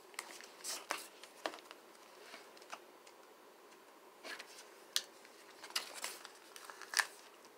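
Faint, irregular small clicks and rustles of thick sticker paper being handled.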